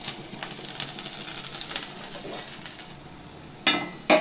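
Crushed fennel seeds and garlic sizzling hard as they hit hot groundnut oil in a steel pan. The sizzle dies down after about three seconds, and a short, sharp knock follows near the end.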